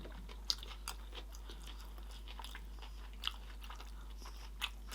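A person chewing a mouthful of sushi roll close to the microphone, with a handful of sharp wet mouth clicks scattered through the chewing.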